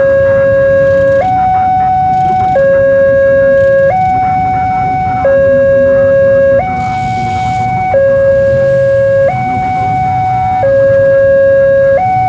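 Railway level-crossing warning alarm sounding a two-tone hi-lo signal, each tone held about a second and a half before switching, warning that a train is approaching and the barrier is down. Under it is a low rumble of idling motorcycle engines.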